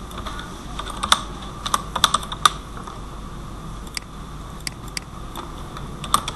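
Typing on a computer keyboard: irregular single keystrokes, several in quick succession about a second in and more near the end.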